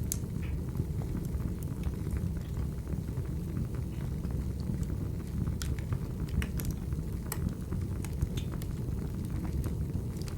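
Wood fire burning in a fireplace: a steady low rumble with frequent sharp crackles and pops of the burning logs.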